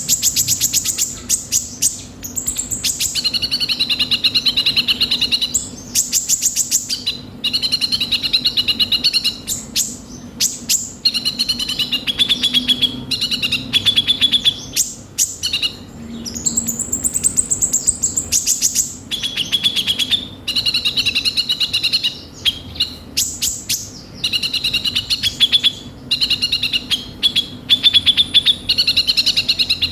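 A kolibri ninja sunbird singing continuously in full, vigorous song. Fast rattling trills alternate with warbling, wavering two-note phrases, with brief pauses between bursts. The song is full of harsh fill notes ('isian kasar').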